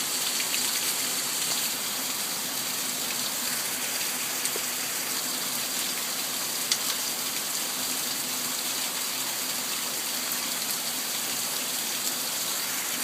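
Steady rain from a thunderstorm, an even hiss with scattered faint drop ticks and one sharper tick about halfway through.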